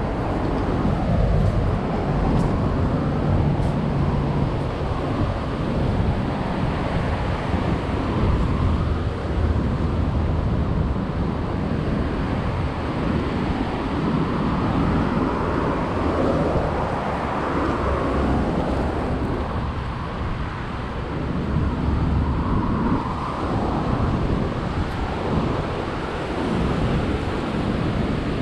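Wind blowing across the microphone, mixed with the rush of ocean surf and passing road traffic.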